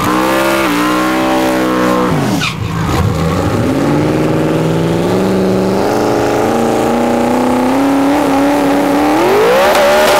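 Drag-racing pickup truck's engine revving hard at high rpm over squealing tyres, as in a burnout. The pitch drops sharply about two seconds in, then climbs in steps and rises again near the end.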